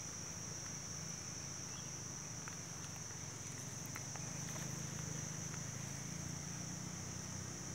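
Steady, high-pitched insect chorus, one unbroken shrill tone with no pauses, with a few faint small clicks over it.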